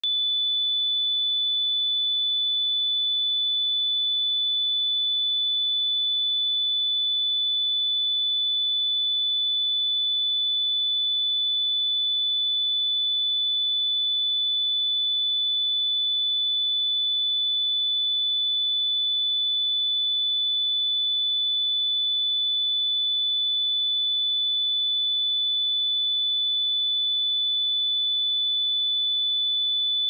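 A steady 3486 Hz sine-wave test tone: one pure, unchanging high-pitched tone for speaker and headphone testing.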